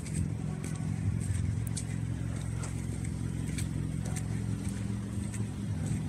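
A car engine idling close by, a steady low hum. Footsteps crunch in snow and slush over it, about two a second.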